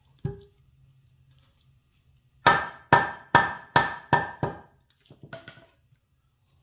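Hammer striking six times in quick succession, about two and a half blows a second, each with a short metallic ring, as a new bushing is tapped flush into an ATV A-arm. A single knock comes just before, and a few lighter taps follow.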